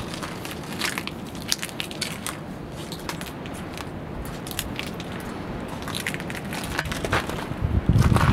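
Footsteps crunching over grit and rust debris on a walkway: irregular crackling crunches, with heavier low thuds near the end.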